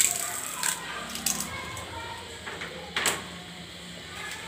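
A few sharp clicks and crackles of crisp fried pieces being crumbled and scattered over china bowls, the loudest about three seconds in, with faint voices in the background.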